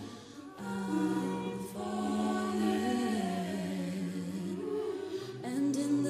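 Mixed-voice a cappella choir singing sustained chords, voices only. The sound dips briefly just after the start, then the chords come back in about half a second later. The lowest voice steps down about halfway through, and the voices swell louder near the end.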